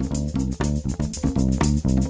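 Background music: a plucked guitar and bass guitar playing a steady, repeating line at about four or five notes a second.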